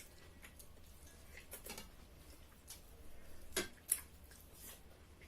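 Light clicks and clinks of dishes and eating at a dinner table, scattered and irregular, with a sharper knock about four seconds in.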